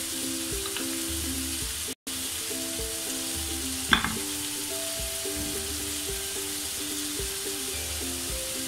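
Steady frying sizzle of minced meat in a pan under soft melodic background music. About four seconds in comes one sharp click of a knife striking a ceramic plate as peeled potatoes are cut into wedges. The sound drops out completely for a moment about two seconds in.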